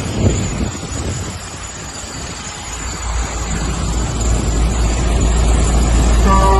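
Street traffic noise with vehicle engines running, and a low engine rumble that grows from about halfway through. Music with held notes comes in near the end.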